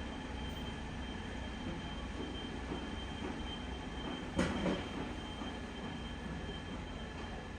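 Heavy machine running with a steady mechanical noise and a faint steady high whine, with a single clank about four and a half seconds in.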